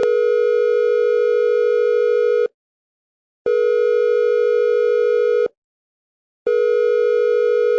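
Cell phone Wireless Emergency Alert (Amber Alert) attention tone, slowed to about half speed so it sounds an octave low, as a harsh two-note buzz. A long tone cuts off about two and a half seconds in, then after a one-second gap comes a two-second tone, and after another gap a third tone starts near the end.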